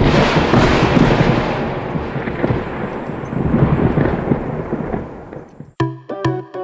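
Loud, crackly rushing noise with a heavy low rumble, like wind buffeting an outdoor microphone. It cuts off abruptly near the end, and music with plucked and bowed string notes begins.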